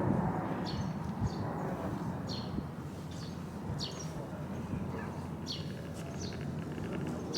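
A bird calling repeatedly in short, sharply falling chirps, unevenly spaced, over a low steady outdoor rumble.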